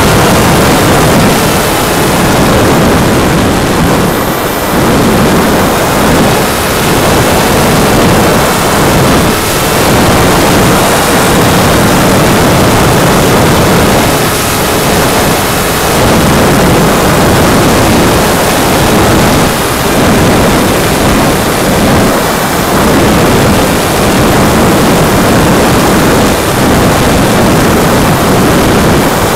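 Loud, steady wind rush on the onboard camera of a Go Discover FPV electric model plane in flight, with the faint steady whine of its upgraded brushless motor and propeller underneath. The rush dips slightly every few seconds.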